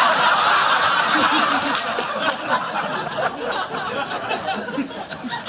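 A studio audience laughing hard, a crowd of many voices, slowly dying down toward the end.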